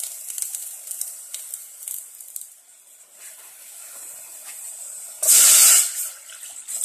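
A little oil sizzling and crackling in a hot metal pot on a gas burner. About five seconds in, water is poured into the hot pot and it hisses loudly in a short burst of steam, then settles.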